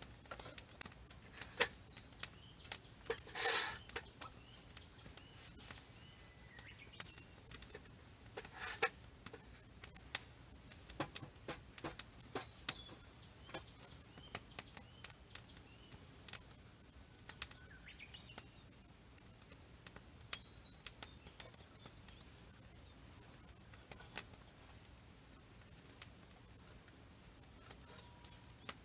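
Campfire wood crackling and popping in irregular sharp snaps. A steady high-pitched tone sits in the background.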